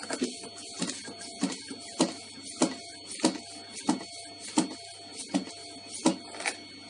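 Hand vacuum pump being worked on a jar's vacuum lid, evacuating the air from the jar. About eleven steady, evenly paced strokes, roughly three every two seconds.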